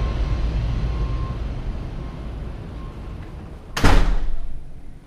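A balcony door being shut: one loud sudden bang with a short rattling ring-out about four seconds in. Before it, a steady low outdoor rumble fades away as the camera passes inside.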